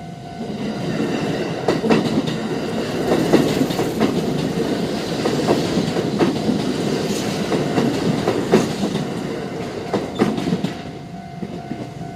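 Kintetsu Kyoto Line train running past over a level crossing, a steady rumble with wheels clacking over the rail joints. The crossing's warning bell rings under it and stands out as the train passes near the end.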